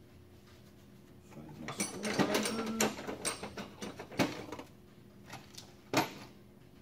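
Small metal drum-brake parts clinking and rattling as they are handled: about a second and a half of clatter, then two single clinks a couple of seconds apart.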